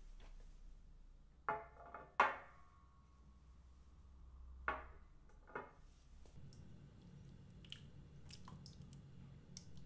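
Kitchen utensils and dishes clinking: four sharp, ringing clinks in the first six seconds, the second one loudest. A low steady hum comes in about six seconds in, with light clicks over it.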